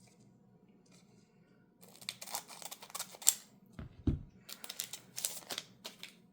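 Trading cards and a foil booster-pack wrapper being handled, crinkling and clicking from about two seconds in, with a dull thump about four seconds in.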